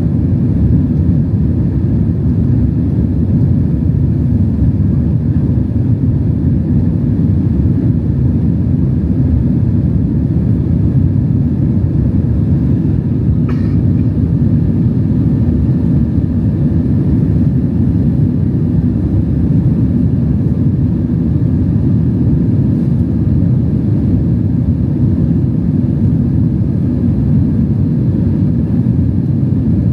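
Steady, loud rumble of a Boeing 767's engines and airflow heard from inside the passenger cabin, around takeoff or initial climb. A single faint click about halfway through.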